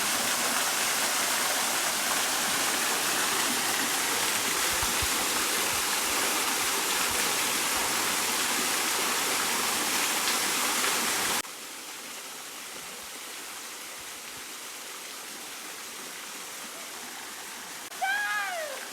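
Kondalilla Falls pouring into its swimming hole: a loud, steady rush of falling water that drops suddenly, about eleven seconds in, to a quieter rush. Near the end comes a brief rising-then-falling call.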